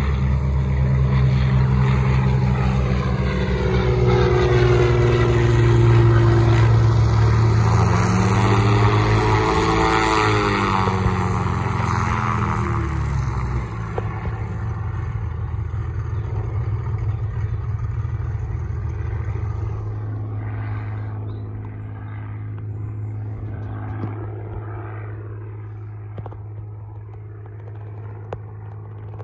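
Light propeller aircraft's piston engine running hard, growing louder, passing close by with a falling pitch about ten seconds in, then fading steadily as it moves away.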